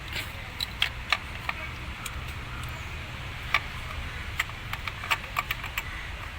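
Irregular sharp clicks and light knocks, about a dozen scattered through, over a low steady hum: hand tools and parts handled while a replacement Valvetronic servo motor is being fitted to a BMW 3 Series engine.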